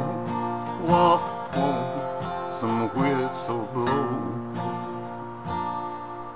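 Acoustic guitar strumming a country song, with a voice singing the last line during the first few seconds. Then a couple of final strums, and the last chord rings and fades.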